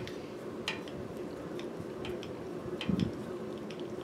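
Faint, irregular small metal clicks as a T-handle driver bit turns the disc brake rotor bolts down onto the hub, with a soft bump about three seconds in.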